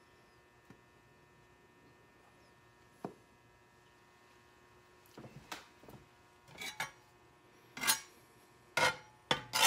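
Spatula scraping and knocking across a cast-iron skillet in several quick strokes from about halfway through, spreading melting butter, over a steady faint electrical hum.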